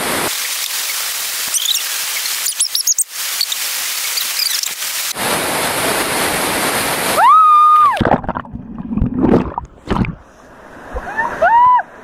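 Kuang Si waterfall cascade rushing steadily. About seven seconds in a high, held scream rings out as someone jumps from the top of the falls, followed by a heavy splash and sloshing as they land in the pool. Short high yells come near the end.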